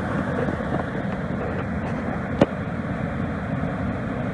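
Spring water gushing and churning through the concrete sluice of an old grist mill: a steady rushing noise. A single sharp click about two and a half seconds in.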